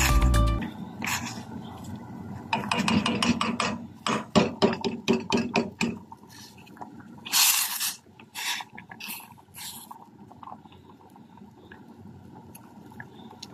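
Background music stops just after the start. Then a plastic spatula scrapes and knocks against a stainless steel pot of boiling water with quinoa and beetroot, in quick runs of scrapes, with one short loud hiss about seven seconds in.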